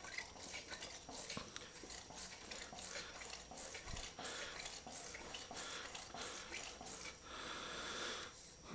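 Öhlins front fork leg being worked by hand as a test of the rebuild, the fresh fork oil inside swishing and hissing in a run of short strokes.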